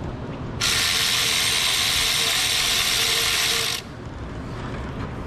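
Impact wrench with a deep 10 mm socket on an extension spinning a thermostat housing bolt loose, one steady run of about three seconds.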